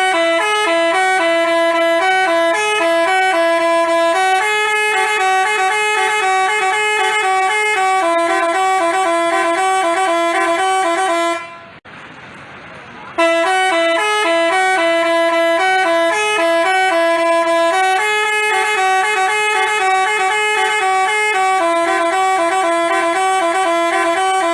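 Telolet basuri multi-tone horn playing a quick stepping melody of short pitched notes. The tune runs about eleven seconds, breaks off briefly, then starts over.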